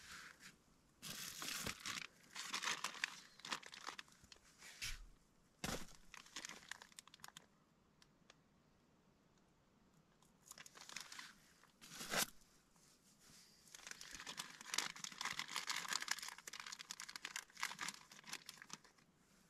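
Irregular crinkly rustling of tent fabric and gear as a person shifts about inside a small tent, with a couple of sharper knocks, one about six seconds in and one about twelve seconds in.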